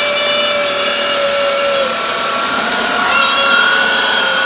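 Dyson DC44 Animal cordless vacuum running at full suction with a steady high whine. Its pitch shifts slightly about three seconds in.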